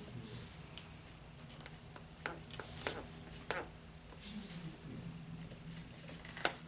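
Light bench handling noises: a few sharp clicks and short scraping rustles as small hobby parts and tools are picked up and set down, over a faint low hum.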